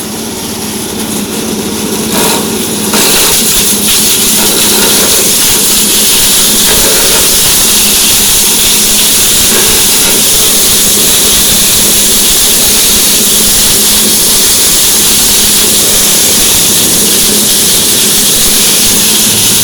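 Grass chopper driven by a Honda 5.5 hp single-cylinder petrol engine, running. About three seconds in, grass is fed in and shredded, bringing a loud steady hissing rush over the engine note that holds to the end.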